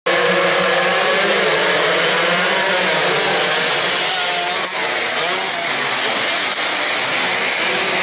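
A pack of small racing motorcycles (underbones and scooters) at high revs, several engine notes rising and falling over one another as the bikes pass.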